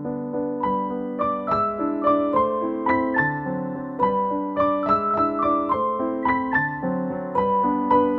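Background piano music: a melody of single notes, a few a second, over held lower notes.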